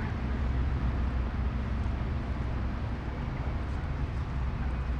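City park ambience dominated by a steady low rumble of distant traffic, with no distinct events standing out.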